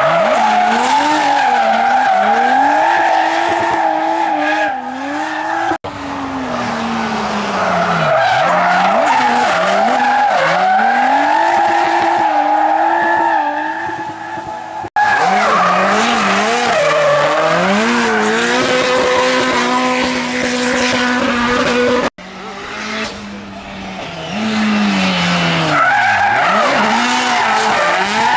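Hillclimb race car engines revving hard and shifting up through the gears, one car after another, with the sound breaking off abruptly three times between cars.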